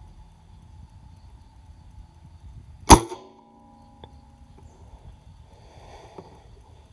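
A single air rifle shot: one sharp crack about three seconds in, followed by a short ringing tone.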